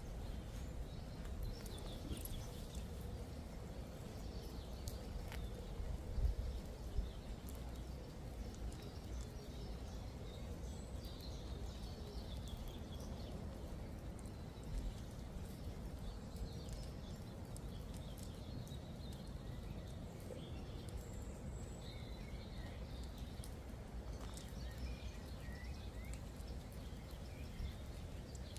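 Birds chirping over a steady low outdoor rumble, with a couple of brief louder knocks about six to seven seconds in.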